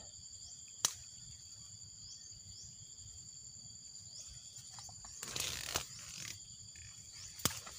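Steady high-pitched insect chorus, crickets trilling with a short rising chirp repeating about twice a second. About five seconds in, grass and undergrowth rustle as they are handled, and two sharp clicks come, one near the start and one near the end.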